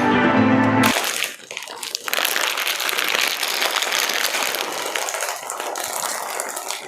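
Crackly crinkling and crunching of potato chips being eaten from a snack packet, a dense run of small clicks. Background music plays briefly and cuts off about a second in.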